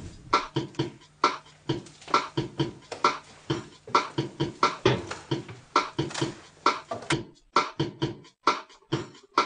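Background music built on a steady, fast percussive beat. About seven seconds in, the hits become sharper and more spaced, with short silences between them.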